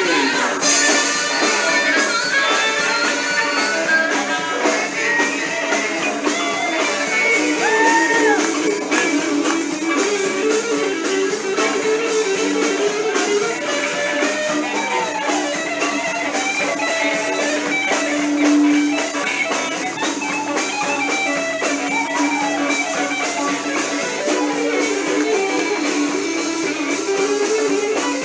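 Blues-rock band playing, with a guitar lead bending notes over the drums.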